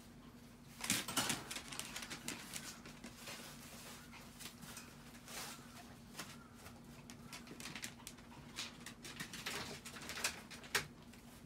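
Two Chihuahuas' paws and claws scrabbling and rustling on a plastic tarp as they play-wrestle: irregular scratchy clicks, busiest about a second in and again near the end.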